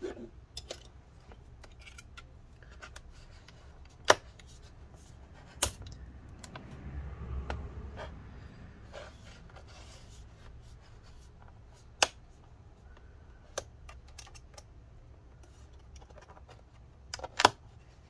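Edge clips of a laptop's bottom cover snapping into place as the cover is pressed on by hand: a handful of sharp clicks several seconds apart, two close together near the end, with faint rubbing of hands on the case between them.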